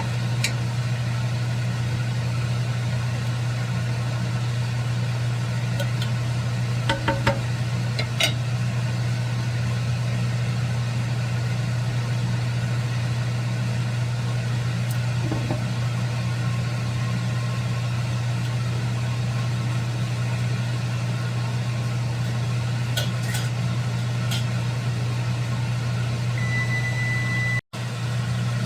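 Steady low machine hum with a few light knocks and clicks of cookware, twice around seven to eight seconds in and again near the end, and a short steady high tone shortly before the end.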